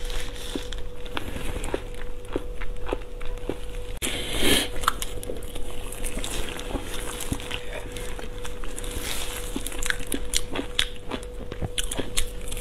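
Close-miked chewing and wet mouth sounds of someone eating a soft sausage, with many small clicks and one louder, noisy burst about four seconds in. A faint steady hum sits underneath.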